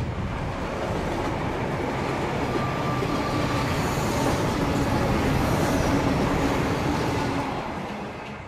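Electric commuter train running at speed: a dense, steady rumble and rattle of the carriages on the track. It fades away near the end.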